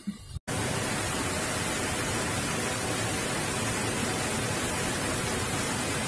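Steady rushing of river water over rocks. It starts abruptly about half a second in and runs even and unbroken.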